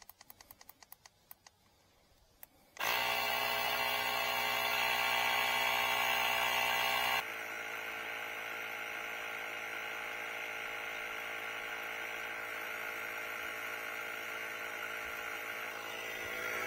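Cordless portable tire inflator's small electric compressor starting suddenly about three seconds in, after a few faint clicks, and running steadily as it pumps up a large truck tire. It drops in level about seven seconds in and keeps running.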